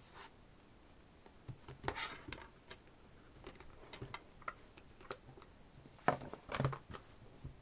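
A CD and album packaging being handled: scattered light clicks, taps and rubbing. The handling noise is louder about two seconds in and again around six to seven seconds in.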